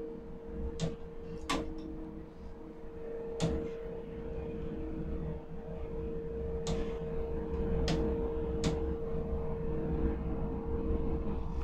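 Overhead ladle crane running, heard from inside its cab: a steady electrical hum with a low rumble, broken by about six sharp clicks.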